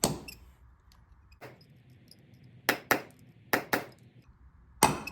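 Hammer striking a steel pin punch to drive a ground-off pin out of a motorcycle drive chain link. There are about six sharp metal-on-metal clinks, two of them in quick pairs.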